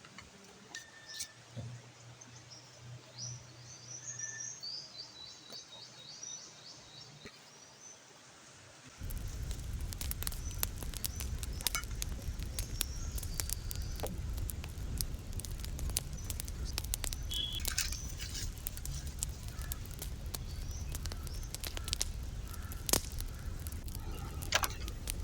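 Small birds chirping faintly in quick twittering series. About nine seconds in, this gives way abruptly to a louder steady rumble full of frequent sharp crackles and snaps.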